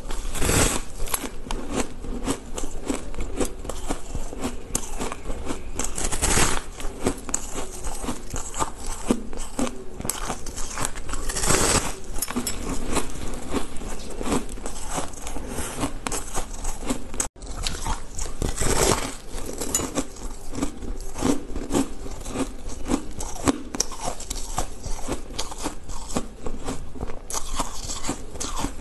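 Close-up crunching of a person biting and chewing a slab of compacted, coloured crushed ice: a steady run of crisp crackles, broken by several louder crunches from bigger bites.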